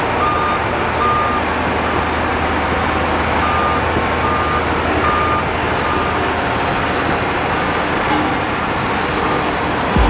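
Heavy road-construction machine running steadily, with its reversing alarm beeping in short regular pulses near the start and again in the middle.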